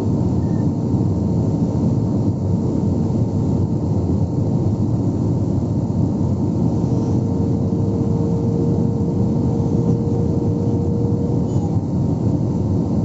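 Jet airliner cabin noise heard from a window seat over the wing during the descent: a steady rumble of engines and airflow with a thin, steady hum running through it.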